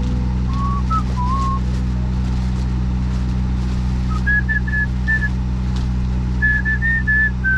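Short whistled notes stepping up and down like a tune, over the steady low hum of an idling truck engine heard inside the cab. The whistling comes in a few notes about a second in, then in longer runs from about four seconds on.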